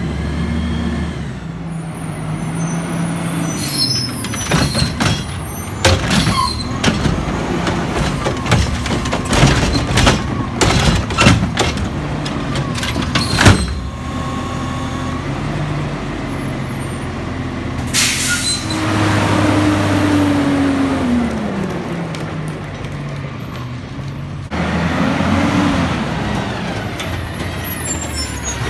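Garbage truck at work: its engine running under a dense run of metal clanks and bangs, then a sharp air-brake hiss followed by a falling engine pitch.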